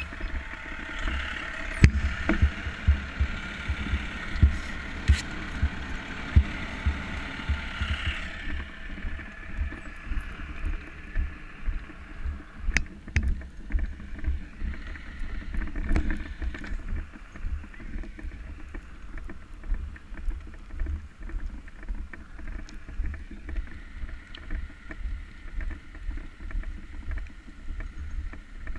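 Footsteps and gear jostling of a firefighter in turnout gear and breathing apparatus, walking, heard as steady low thumps about two a second close to the camera he wears. A fire engine's motor runs at the start and fades out about eight seconds in.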